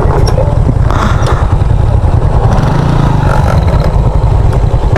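Motorbike running while ridden over a rough off-road trail: a loud, steady low rumble of engine and riding noise.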